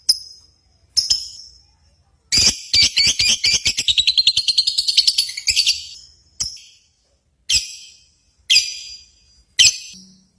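Lovebirds singing: sharp, high chirps about once a second, broken by a fast chattering trill of rapid chirps that runs for about three and a half seconds and climbs slightly in pitch.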